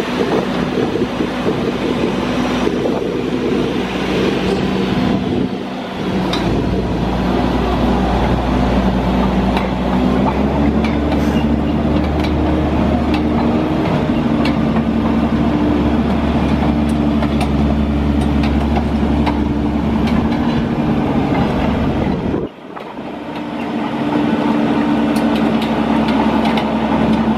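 A 2005 Atlas Copco ROC F9CR crawler drill rig's Caterpillar C9 diesel engine running as the rig drives on its steel crawler tracks, with faint clicks from the tracks. The engine note deepens and picks up about six seconds in. The sound breaks off briefly a little after twenty-two seconds and resumes.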